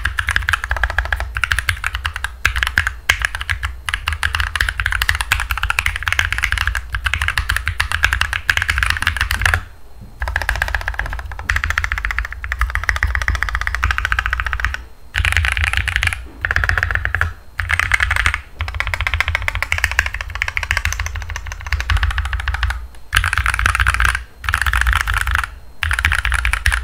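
Continuous typing on a Royal Kludge RK68 mechanical keyboard with tactile Holy Panda switches on an aluminum plate, a rapid run of key clacks broken by brief pauses, over a low hum from the microphone.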